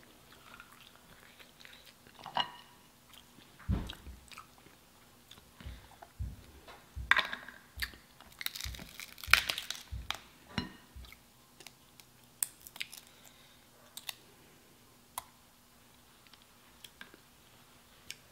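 Eating sounds: chewing, with sharp clicks and crackles of king crab legs being handled and pulled apart, busiest in the first half, then a few scattered clicks.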